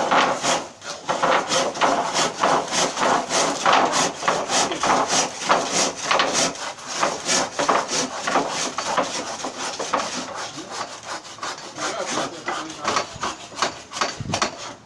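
A hand saw cutting through wood with steady back-and-forth strokes, about two or three a second.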